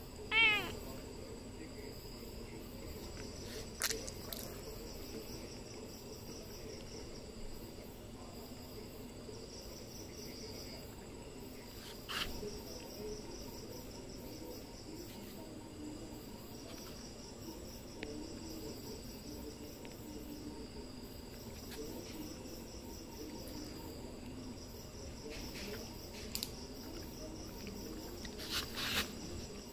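Crickets chirping steadily in the night. A kitten gives one short meow about half a second in, and a few faint clicks come later.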